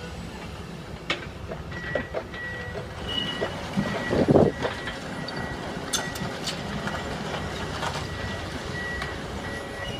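Demolition excavators working on brick rubble: a steady diesel engine rumble with scattered knocks and clanks of masonry, and a louder crunch about four seconds in. A reversing alarm beeps on and off from about two seconds in.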